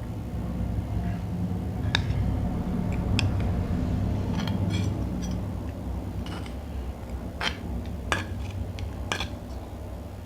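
Cutlery clinking against a dish about half a dozen times while someone eats fried instant noodles, over a steady low rumble.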